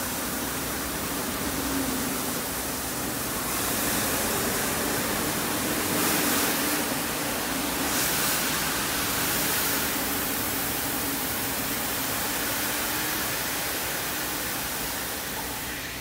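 RWM78 automatic carpet washing machine running: a steady hiss over a low, even hum. It grows louder and brighter between about four and ten seconds in, then settles.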